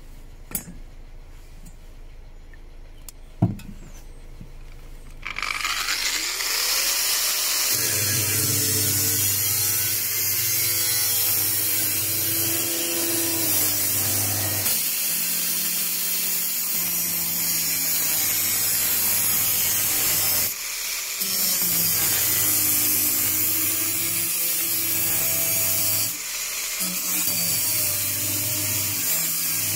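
Grinder with an abrasive cutting disc slicing through the car's sheet-steel rear panel. It starts about five seconds in after a couple of small clicks, then runs with a steady harsh hiss of disc on metal and a motor hum, easing off briefly twice.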